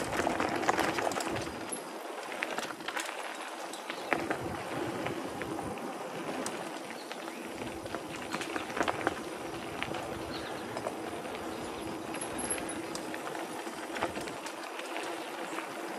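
Specialized Stumpjumper mountain bike rolling fast over a dirt singletrack: steady tyre noise on the dirt, with frequent clicks and rattles from the bike over bumps.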